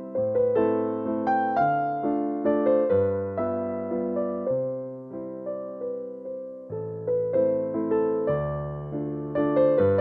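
Background piano music: a gentle melody of struck notes, each fading away, over a steady pulse of chords.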